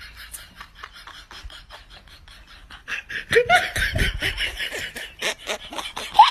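A person laughing hard: breathy bursts with short squeals that rise in pitch, starting about three seconds in and peaking near the end. Before that, a light, rapid clicking.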